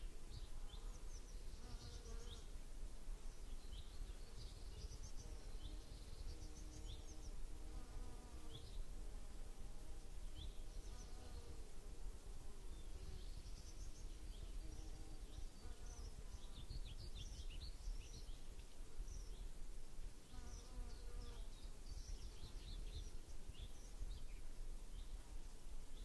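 Flying insects buzzing in passes that come and go, with quick high bird chirps throughout, over a steady low rumble.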